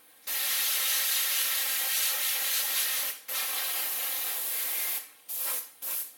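Siphon-feed airbrush spraying paint in hissing bursts: one long spray of about three seconds, another of nearly two, then two short puffs near the end.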